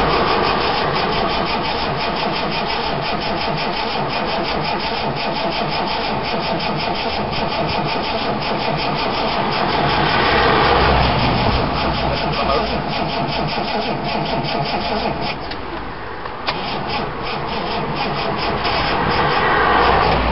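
Starter motor cranking the 1973 Reliant Scimitar GTE's 3-litre Essex V6 in a rapid, regular rhythm on its first start attempt after a new head gasket. The cranking stops briefly about fifteen seconds in, then starts again.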